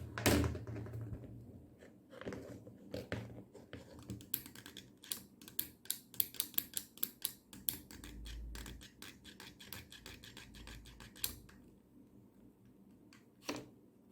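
Clicks, scrapes and light knocks of the mini grinder's parts and hand tools being handled during disassembly. A sharp knock comes at the start, a quick run of small clicks in the middle, and another knock near the end.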